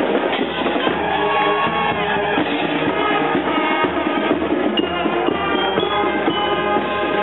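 Marching band playing a tune, brass horns held over drums and cymbals.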